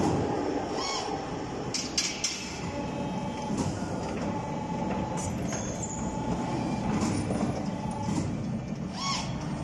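CNC tube bending machine working through a bending cycle: a steady mechanical hum with several sharp clicks and clunks, and a faint whine that comes and goes.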